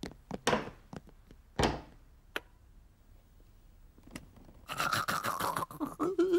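Cartoon sound effects of someone moving inside a cello case: a few soft knocks and clicks, a thud, then about a second of rapid scraping rattle near the end.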